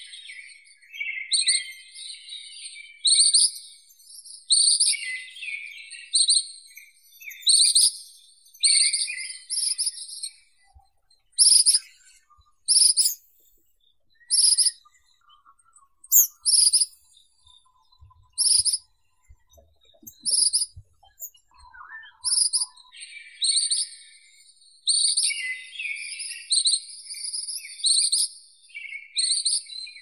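Ashy minivet calling with high trilling 'tiriri' phrases, packed close together at first. In the middle they thin to single sharp notes about one a second, then close-set trills return near the end.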